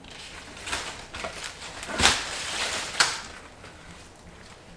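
Napa cabbage leaves rustling and crunching as the head is pulled out of an aeroponic tower garden's grow port. There are several short rustles, the loudest about two seconds in.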